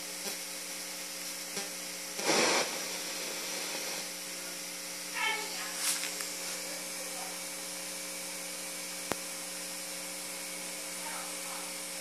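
Steady electrical hum with several held tones over low hiss, broken by a short rush of noise about two seconds in, faint brief sounds around five and six seconds, and a single click about nine seconds in.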